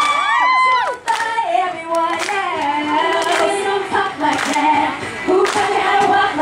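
Girl pop group singing a song live into microphones, several female voices together. In the first second a few high shrieks from the audience rise and fall away before the singing takes over.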